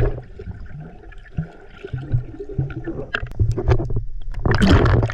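Water sloshing and splashing close to the microphone, with knocks and a louder splash about four and a half seconds in.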